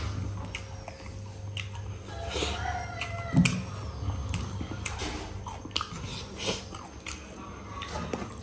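A person chewing and biting mutton and rice close to the microphone, with irregular wet mouth clicks and smacks. A louder thud comes about three and a half seconds in.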